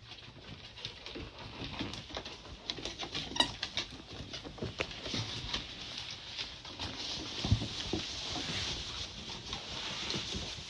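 Labrador puppies' paws and claws pattering and clicking irregularly on a painted wooden porch floor. A short high squeak comes about three seconds in, and a single heavier thump about seven and a half seconds in.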